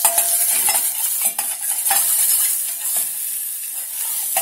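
Butter sizzling as it melts in a hot stainless-steel saucepan, a steady hiss, with a metal spoon scraping and knocking against the pan in repeated strokes as it pushes the butter around.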